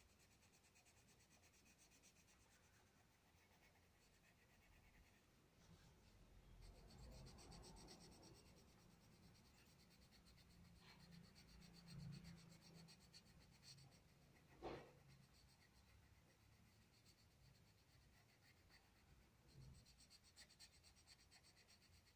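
Faint scratching of a coloured pencil shading on workbook paper, with a single short click about two-thirds of the way through.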